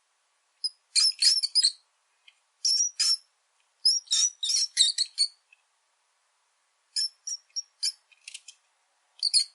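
Mouse squeaking: short, high-pitched squeaks in quick runs of three to six, separated by silent gaps of about a second.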